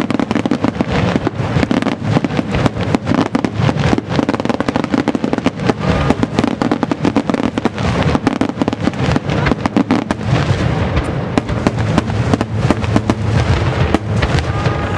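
Large star mine fireworks barrage: shells launching and bursting in rapid succession, booms and crackles overlapping without a break.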